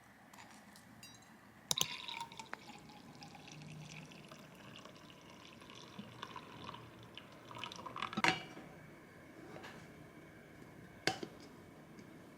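A drink being poured into a glass, with sharp glass clinks at about two seconds, about eight seconds and near the end.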